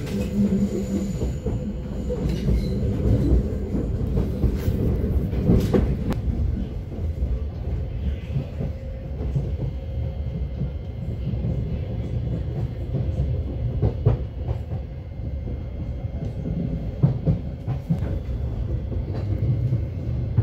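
Inside a Thameslink electric train running along the line: a steady low rumble of wheels on track with a faint steady hum. Now and then a sharp click or knock comes from the wheels passing over rail joints or points.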